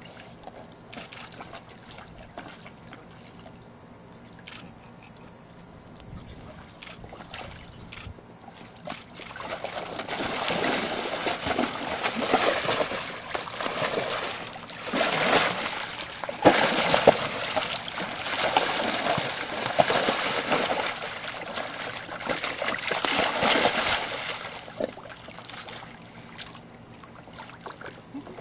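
A white tiger splashing in a round metal stock tank of water. Light trickling and small knocks for the first several seconds, then heavy, irregular splashing from about ten seconds in, easing to sloshing near the end.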